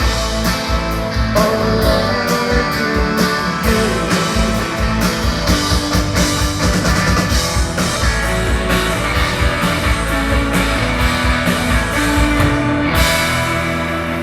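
Live rock band playing an instrumental passage with electric guitars and a steady drum kit beat. About a second before the end the band stops and the crowd begins cheering.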